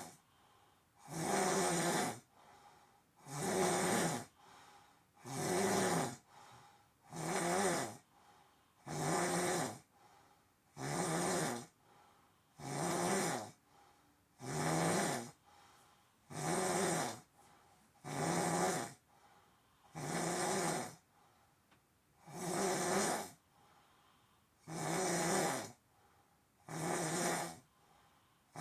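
A sleeper snoring steadily and rhythmically, one snore about every two seconds, each lasting about a second with quiet breaths between.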